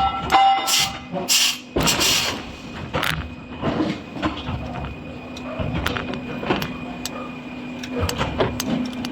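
Heavy forging-shop machinery running with a steady low hum. Scattered metal clanks and knocks ride over it, with several short bursts of hissing and a brief squeal in the first two seconds.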